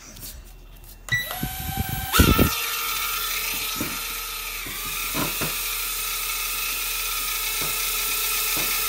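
Potensic A20W mini quadcopter's four small propeller motors spinning up about a second in, climbing in pitch with a few low thuds as it lifts off, then a steady high-pitched whine as it hovers.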